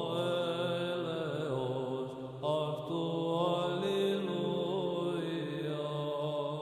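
Byzantine-style chant: a slow, ornamented vocal melody over a steady held low drone (the ison).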